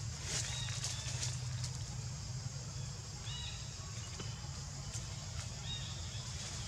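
Quiet outdoor ambience: a steady low hum with a few short high chirps a little past the middle. Faint rustles and clicks come from a baby macaque handling and eating food among dry leaves.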